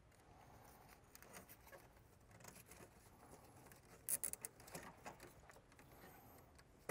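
Faint handling noises as a rubber hose and its plastic fittings are pulled aside by a gloved hand: scattered light clicks and rustles, with a short louder clatter of clicks about four seconds in.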